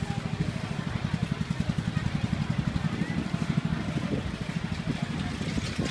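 A small engine running steadily at idle, a low, rapid, even chugging, with faint voices behind it.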